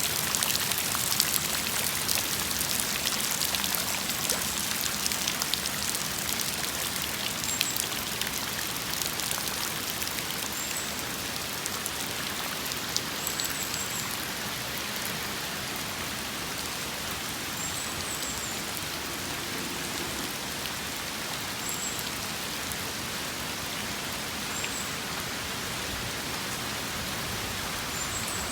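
Steady rain falling, with sharp clicks of individual drops hitting a surface, thicker in the first several seconds. A short, faint high chirp recurs every few seconds.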